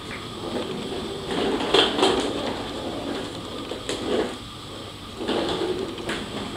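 Plastic casters of a child's ride-on wiggle car rolling over a wooden floor, getting louder in a few surges as the car swings, with a few light knocks.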